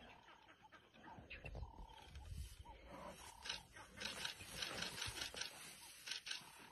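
Lionesses growling low over a young antelope they have just caught. A rapid run of high, sharp chirps comes about four to five seconds in.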